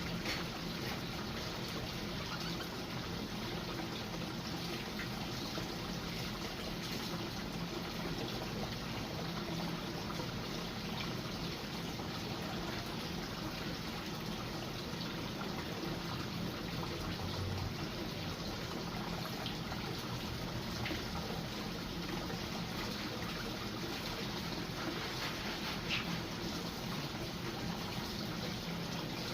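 Water trickling steadily, with a few faint short ticks over it.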